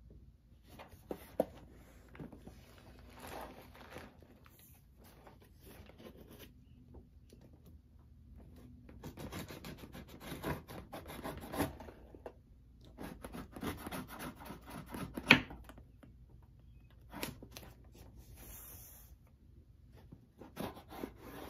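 A knife blade slitting the tape along a cardboard box's seam: intermittent scratchy scraping and tearing, busiest in the middle of the stretch, with a few sharp clicks.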